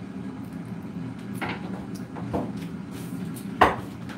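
Air fryer preheating, its fan giving a steady low hum, under three short knocks and clatters of kitchen items being handled; the last knock, near the end, is the loudest.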